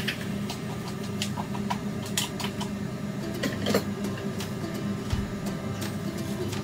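Steady low hum of a running window air conditioner, with scattered clicks and knocks from a plastic blender jar being handled and set back onto its base about three and a half seconds in. The blender motor is not running.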